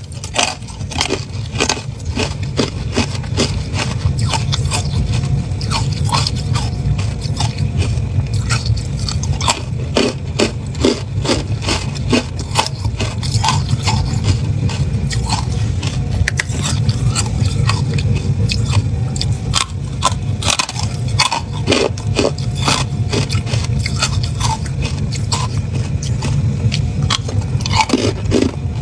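Close-miked crunching and chewing of porous white carbonated ice, a dense run of sharp crackles and crunches, over a steady low rumble.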